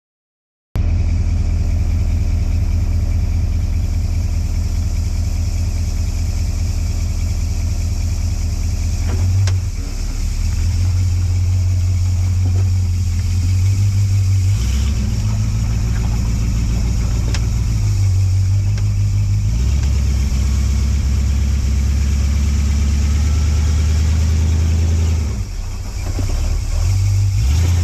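Engine of an off-road 4x4 running under load on a trail, its revs rising and falling several times, with a couple of brief dips in the engine note and a few knocks.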